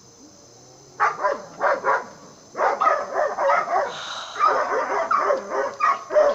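Dogs fighting and barking in quick, loud runs that start about a second in, male dogs fighting over a female in heat.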